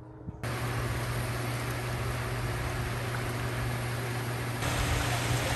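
Hot tub jets running: a steady rush of churning water over a low pump hum. It starts suddenly about half a second in and grows louder and brighter near the end.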